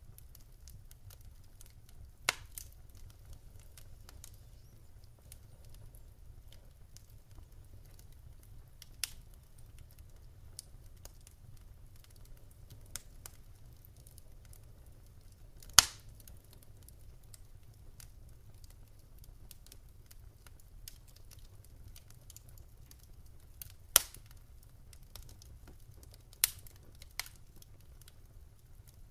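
Wood fire crackling: a few sharp, isolated pops and cracks, the loudest about halfway through, over a faint steady low rumble.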